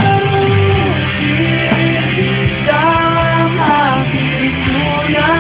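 Rock band playing, with electric guitar over bass and drums between sung lines of an Indonesian pop-rock song.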